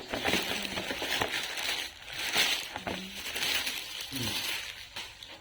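Plastic packaging crinkling and rustling in uneven surges as it is handled and pulled at.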